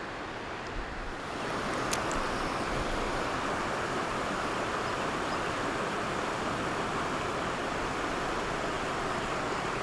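Rushing water of a shallow river riffle, a steady hiss that grows louder about a second in and then holds, with a few light clicks around two seconds in.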